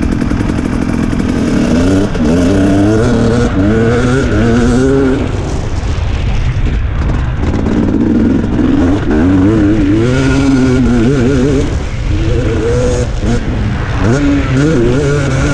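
KTM 250 SX two-stroke single-cylinder motocross engine, heard from onboard the bike, revving hard and climbing in pitch again and again as the rider accelerates along the dirt track, dropping back briefly about six and twelve seconds in.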